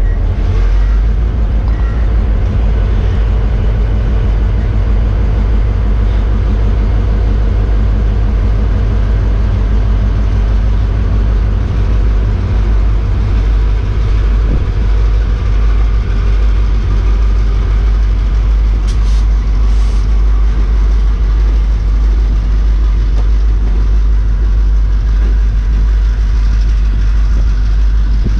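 South Shore Freight diesel locomotives running as they pull a freight train slowly past, a loud, steady, deep rumble.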